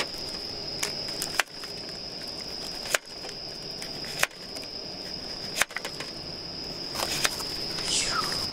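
Kitchen knife chopping through a sweet potato onto a wooden cutting board, a sharp chop about every second and a half, with insects chirring steadily and high behind it. A plastic pack rustles near the end.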